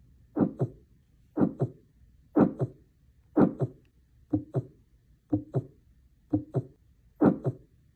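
Recorded heartbeat with a murmur: eight paired lub-dub beats, about one a second. The murmur is a sign of turbulent blood flow across the heart valves.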